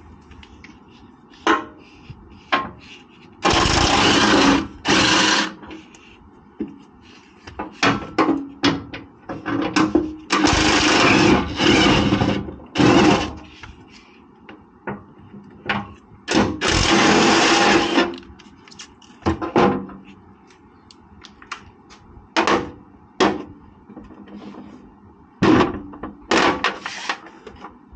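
Impact wrench running in bursts of one to two seconds as it loosens bolts, with short knocks and clicks between bursts and a few quick bursts near the end.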